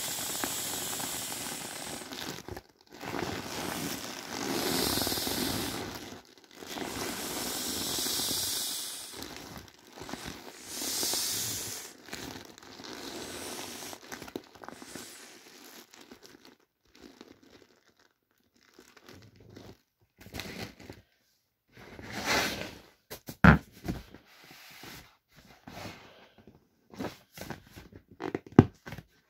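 Air hissing out of inflatable vinyl toys as they are pressed flat, in a series of pushes lasting a second or two each. After about twelve seconds, the hissing gives way to quieter crinkling and rubbing of the vinyl, with a few sharp crackles.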